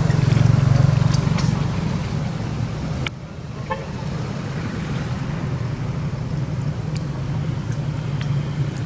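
Steady low hum of a motor vehicle engine running nearby. It drops abruptly about three seconds in and comes back.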